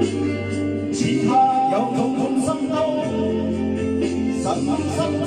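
A man singing into a handheld karaoke microphone over a backing music track.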